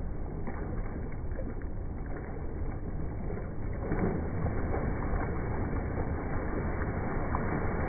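Pool water splashing and sloshing as water polo players tread water and throw the ball, louder from about four seconds in.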